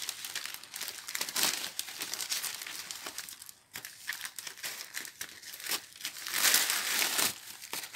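Paper plant sleeve crinkling and tearing as it is cut open with scissors and pulled away from the plant, in a run of rustles and crackles that is loudest about six and a half seconds in.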